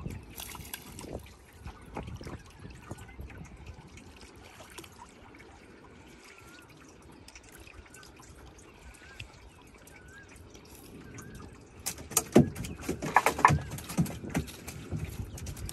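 Water dripping and trickling off a wet gill net as it is pulled by hand out of the lake into a small wooden boat. About twelve seconds in there is a louder spell of splashes and knocks as the net is handled against the boat.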